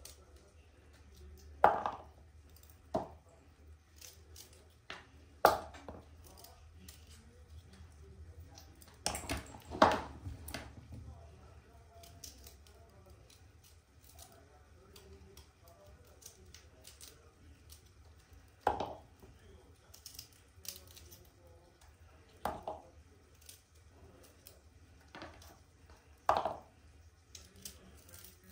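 A knife trimming Brussels sprouts, with the sprouts dropping into a plastic bowl: short, sharp knocks and clicks a few seconds apart, the loudest about two and ten seconds in, over a faint low hum.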